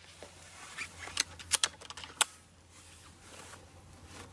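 A quick run of sharp mechanical clicks over about a second and a half, the loudest near the middle and at the end: the rear-mounted cocking lever of a Reximex Zone PCP air rifle being worked after a shot to cock it for the next one.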